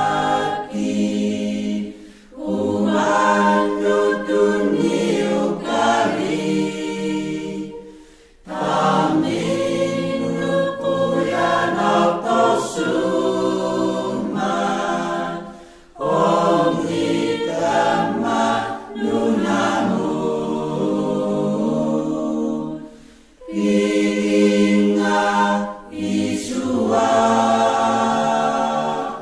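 A choir singing a Christmas hymn in long sung phrases, with short breaks between phrases about every six to eight seconds.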